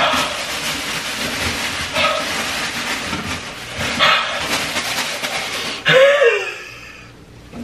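Crinkling and rustling of a paper takeout bag for about six seconds, then one short whine that rises and falls.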